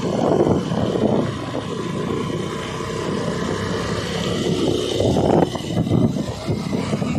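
Motorcycle engine running steadily under way, mixed with wind rushing over the microphone.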